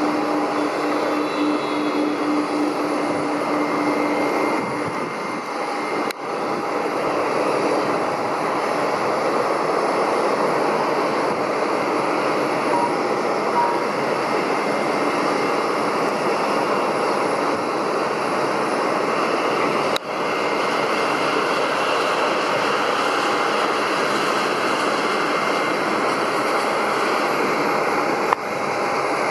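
Steady jet aircraft engine noise with a faint, even turbine whine, broken by a few short sudden dips.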